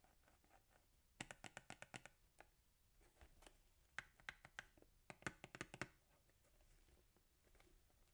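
Long gel fingernails tapping quickly on a cellophane-wrapped cardboard cake box, in three short runs of sharp clicks at about eight taps a second. Fainter rustling of the plastic wrap follows near the end as it is pulled off.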